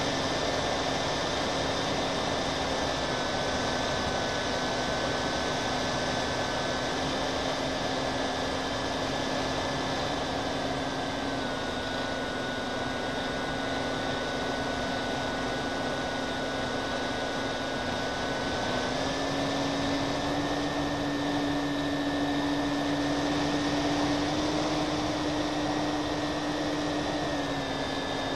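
Twin-engine radio-controlled plane's motors and propellers in flight, heard from the onboard camera: a steady hum and whine over a rush of air, its pitch dropping and rising in small steps several times.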